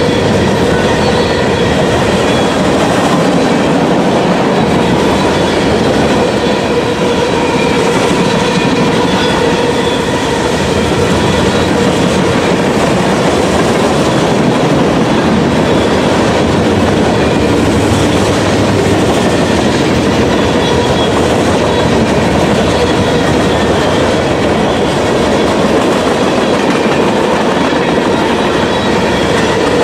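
Freight cars of a long CSX manifest train rolling past at speed: a steady, loud rumble of steel wheels on rail, with a faint ringing from the wheels.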